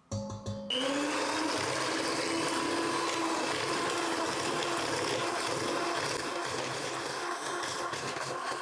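Electric mixer switched on to whip eggs and sugar in a bowl. Its motor pitch rises as it gets up to speed about a second in, then it runs steadily with the beaters churning the mixture.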